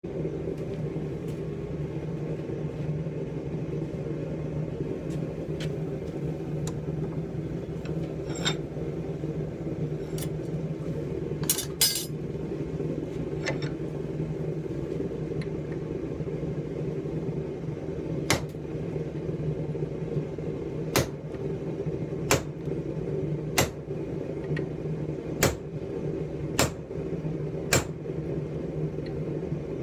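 Hammer blows on a steel punch set into the red-hot head of a pipe tomahawk clamped in a vise. A few scattered strikes come first, then from a little past halfway they fall regularly, roughly one every second and a half, over a steady low hum.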